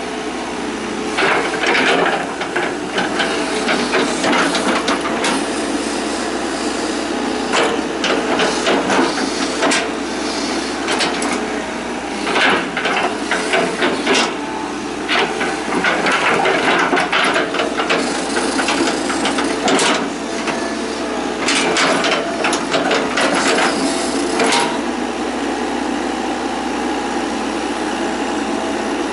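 Hitachi EX120 hydraulic excavator at work, its diesel engine running steadily under load. Bursts of knocks and clatter come and go over it.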